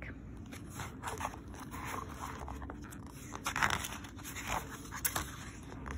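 Paper rustling and crinkling as a book page is handled and turned, with a few sharper crinkles about three and a half and five seconds in.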